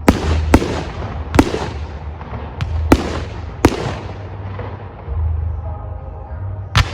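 Aerial firework shells bursting: a string of sharp bangs in the first four seconds, each followed by a rolling echo, then a single bang near the end.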